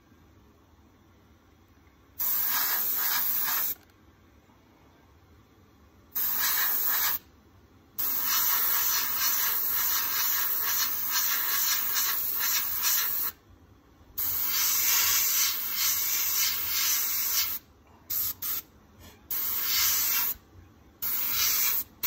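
Gravity-feed airbrush spraying paint in on-off bursts of hiss as the trigger is worked: two short bursts, then two long runs of several seconds each, then several quick short puffs near the end.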